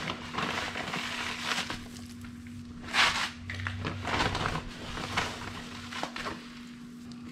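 Granular oil absorbent poured from its bag onto an oil spill on a concrete floor: the granules patter and hiss down in several short pours, the loudest about three seconds in, with the bag rustling.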